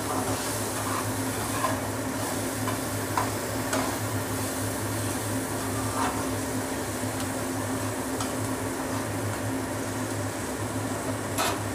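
Sliced onions sizzling steadily as they fry to light brown in hot mustard oil in a kadai. A spatula stirs them, scraping and tapping against the pan in a few short clicks. A steady low hum runs underneath.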